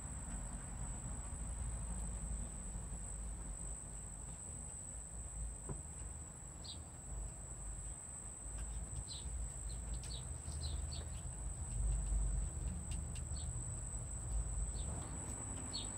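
Quiet outdoor background: a low rumble under a steady high-pitched whine, with a scattering of short high chirps from about six seconds in.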